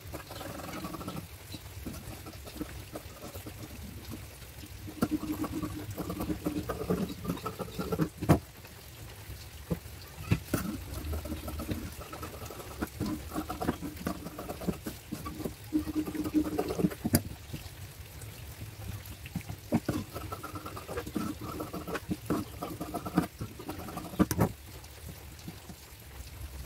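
Large fabric scissors snipping through blouse cloth in irregular cuts, mixed with cloth rustling and sliding as the pieces are handled, with scattered sharp clicks.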